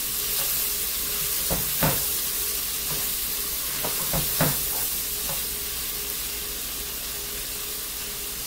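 Sliced sausages, bell peppers and onions sizzling in olive oil in a nonstick pot, with a steady hiss. Tongs knock and scrape against the pot several times in the first half as the mixture is stirred.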